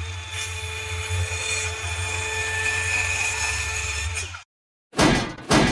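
A power tool running steadily with a whine over a low hum, then winding down and stopping about four seconds in. Two short, loud bursts follow near the end.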